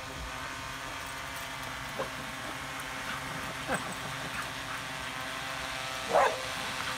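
A small dog barks a few times, the loudest bark a little before the end, at a quadcopter drone hovering overhead, whose propellers give a steady many-toned hum underneath.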